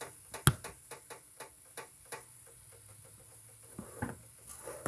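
Irregular light clicks and ticks, with one sharp knock about half a second in. Near the end, a hand grabbing the phone adds a rustle of handling noise.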